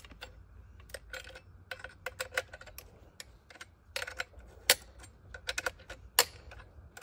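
Irregular sharp metallic clicks and clinks as the height-adjustment clamps on an Alaskan chainsaw mill are loosened and the bar carriage is shifted to set the depth of cut. A few of the knocks are louder and ring briefly.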